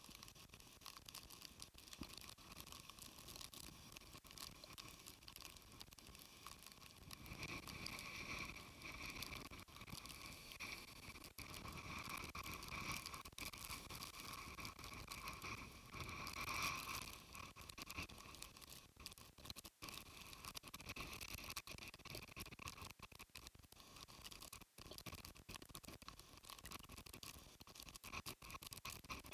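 Storm rain and wind hitting the camera, a dense crackly patter and scratching. It grows louder about a quarter of the way in and is loudest near the middle.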